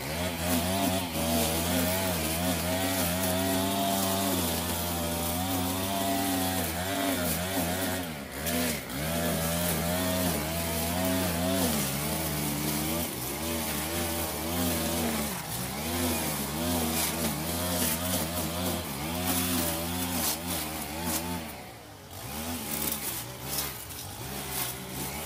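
Stihl FS 90 R string trimmer's engine running at cutting speed, its pitch wavering up and down as the line cuts through tall weeds. Near the end it eases off briefly before revving up again.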